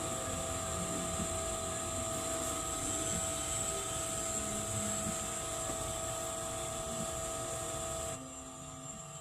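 Coolant-system smoke-test machine running steadily, its pump giving a hum with a few held whining tones while it pushes smoke into the cooling system to find a leak. Its hiss drops away near the end.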